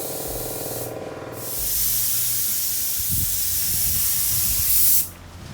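Paint sprayer spraying gel coat onto a boat hull: a loud steady hiss that stops briefly about a second in, resumes and cuts off suddenly near the end. A machine hums steadily under the spray at first.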